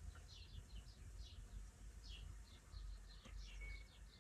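Near silence with faint, scattered chirps of small birds, many short calls, over a low background rumble.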